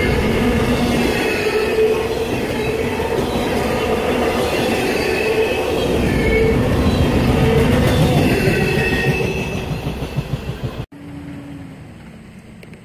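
Double-stack intermodal freight train's well cars rolling past, steel wheels rumbling on the rails with intermittent squealing at several pitches. The sound fades as the end of the train goes by, then cuts off abruptly about eleven seconds in, leaving a much quieter background.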